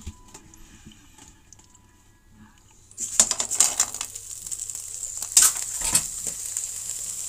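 Razor clams sizzling in a hot frying pan, starting about three seconds in, with their shells clicking and clattering against the pan over a steady hiss.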